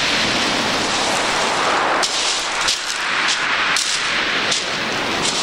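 Footsteps crunching on shingle pebbles, a crunch about every half second or so from about two seconds in, over a steady rush of surf washing on the stones.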